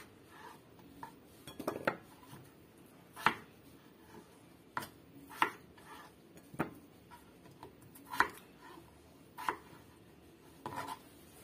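Kitchen knife cutting peeled potatoes into chunks on a cutting board. The blade knocks on the board about eight times, one sharp knock every second or so.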